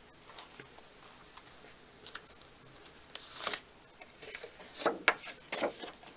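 Sheets of paper and card rustling and sliding as they are handled, in a few short rustles; the loudest come about three and a half and five seconds in.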